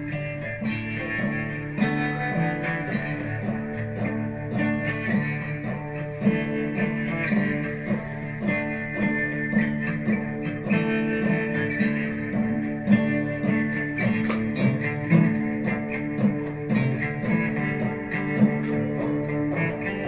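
Instrumental guitar music: plucked and strummed guitar notes in a steady rhythm, with no singing.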